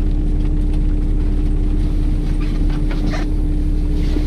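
Car engine running inside the cabin: a steady low rumble with a constant hum.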